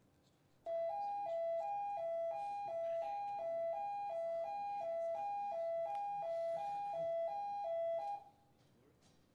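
Building fire alarm sounder during a scheduled alarm test, giving a two-tone alternating warble, a low and a high note swapping about three times a second. It starts about a second in and cuts off suddenly near the end.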